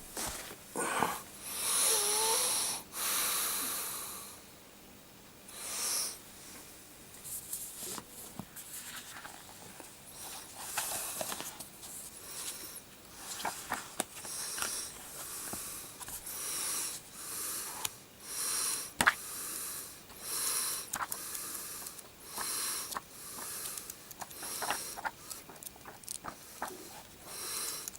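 A person breathing heavily and noisily close to the microphone. The breaths come in repeated rasping bursts, roughly one a second for much of the time, with a few sharp clicks between them.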